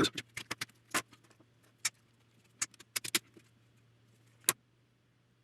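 Small sharp metallic clicks and taps of steel wire pieces and clamps being handled, about a dozen scattered irregularly. A faint low hum runs underneath and stops with a louder click about four and a half seconds in.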